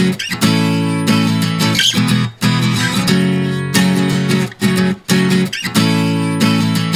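Music: an acoustic guitar strumming chords, with brief breaks between phrases.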